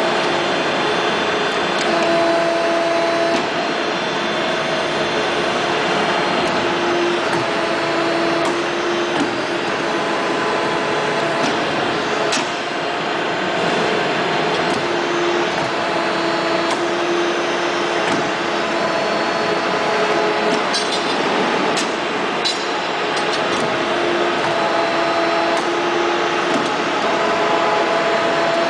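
Three-axis CNC hydraulic tube bender running: a steady noise from its hydraulic power unit, with pitched whines lasting a second or two as the axes feed, rotate and bend, and a few sharp clicks.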